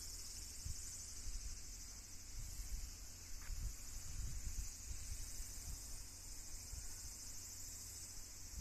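Steady, high-pitched chorus of insects chirring, with a low rumble underneath that comes and goes and is strongest in the middle.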